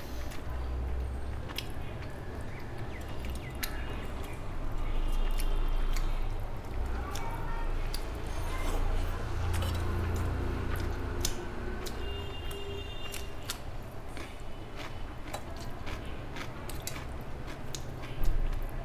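Close-up eating sounds: fingers squishing rice and curry on a steel plate, and wet chewing, with many small clicks and smacks. There is a louder bump near the end.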